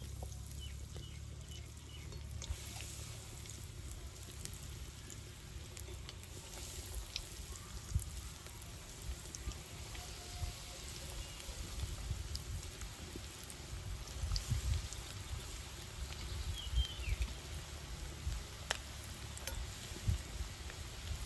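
Breaded egg lollipops deep-frying in hot oil in an aluminium karahi: a steady bubbling sizzle, with a few light clicks, over a low rumble.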